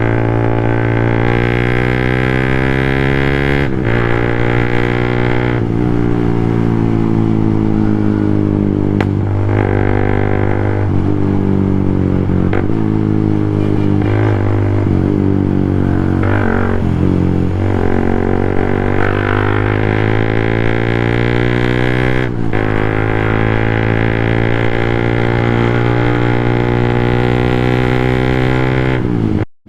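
Motorcycle engine and exhaust running steadily, its pitch rising and falling again and again as the throttle is opened and eased off. It cuts off suddenly near the end.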